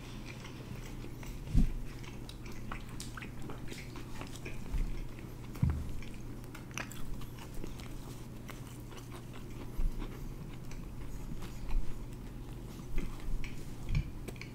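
Two people chewing and biting mouthfuls of dry biscuits, with many small wet clicks and crackles of mouth noise and a couple of soft low thumps.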